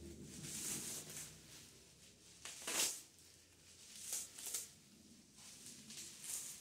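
Bubble wrap and a clear plastic bag crinkling and rustling as they are handled and pulled off a pool cue, in several short bursts, the loudest a little under three seconds in.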